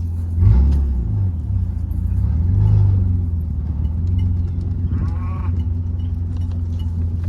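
A vehicle engine running with a steady low drone that revs up briefly about half a second in, then settles.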